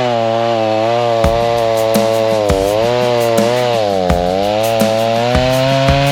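Chainsaw engine running hard, its pitch dipping and rising several times as the revs change, with a few sharp clicks.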